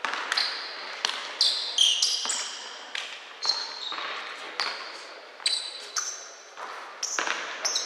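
Basketball game on an indoor court: the ball bouncing in an irregular run of thuds, with short high squeaks of sneakers on the floor, echoing in the hall.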